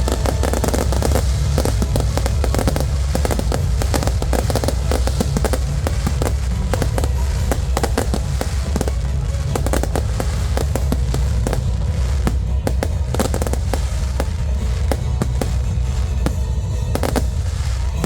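Fireworks display: rapid bangs and crackling from aerial shells, densest in the first half and thinning out later, over loud music with a heavy bass.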